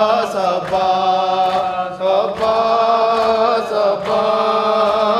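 Men's voices chanting a Shia nauha lament with long held notes, over regular chest-beating (matam) slaps.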